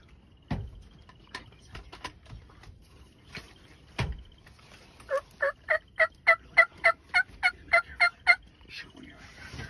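Wild turkey calling: a fast run of about a dozen evenly spaced calls, each note the same pitch, lasting about three seconds. Earlier come a couple of dull thumps.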